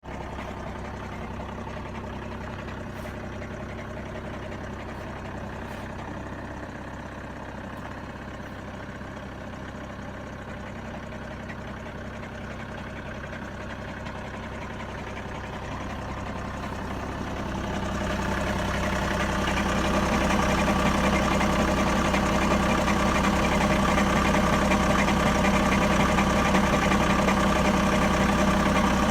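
Volkswagen-group 2.0 TDI diesel engine idling with a knock that the owner puts down to the flywheel, a knock that comes only when the engine is cold. The sound grows louder about two-thirds of the way through and then holds steady.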